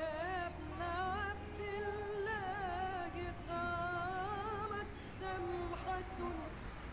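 Background music: a woman singing a slow, drawn-out melody, holding long notes with strong, wavering vibrato and ornaments.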